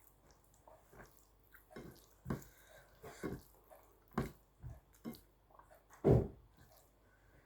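Close-miked wet eating sounds of a person chewing rice and curry: irregular smacks and squelches, the loudest about six seconds in.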